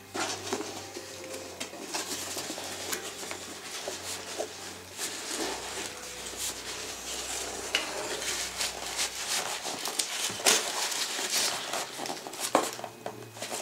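Cardboard shipping box being opened by hand, its flaps rubbing and scraping, with sharp crackles and knocks, then foam packing peanuts spilling out onto a wooden table.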